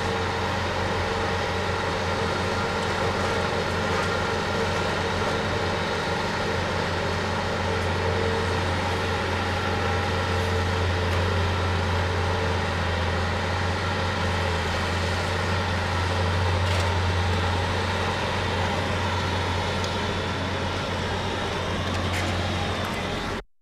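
Scoop loader's diesel engine running steadily with a low drone. It cuts off suddenly near the end.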